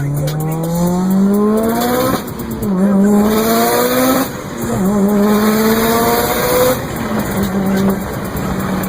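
Turbocharged car engine accelerating hard through the gears. Its note rises steadily in each gear and drops abruptly at gear changes about two and four seconds in. After a third climb the note falls back and holds steady near the end.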